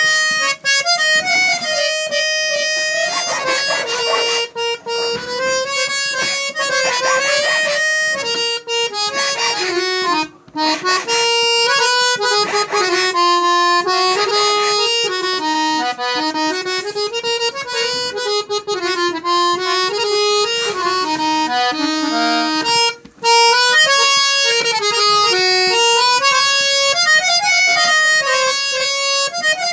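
Harmonium being played, its reeds sounding a flowing melody with full, reedy tone, broken by two short pauses.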